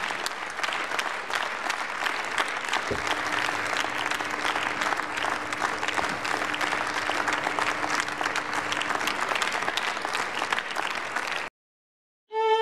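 Parliament members applauding, a dense steady clapping of many hands; it cuts off abruptly near the end.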